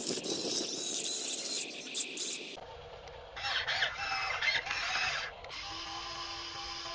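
Small electric gear motors of a radio-controlled toy construction vehicle whining and their plastic gears clattering, in short segments that change abruptly twice.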